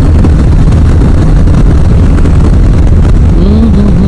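BMW G310GS motorcycle's 313 cc single-cylinder engine running at road speed, with loud, steady wind rush on the microphone. About three and a half seconds in, a wavering higher tone comes in over it.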